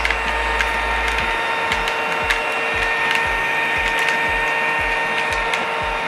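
Battery-powered toy vacuum cleaner running: a steady small-motor whine with a busy plastic rattling and clicking over it.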